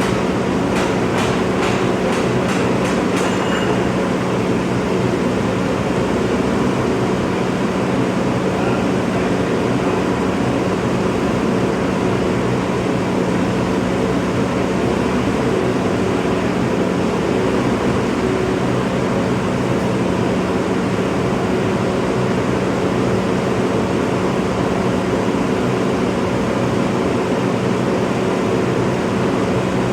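Bobcat skid steer's diesel engine running at a steady speed while it holds the loader's engine on its forks, with a quick run of evenly spaced clicks in the first three seconds.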